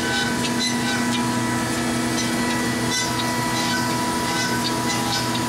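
Marvel 15A9 automatic horizontal band saw standing powered up, giving a steady machine hum with several fixed tones and faint scattered ticks.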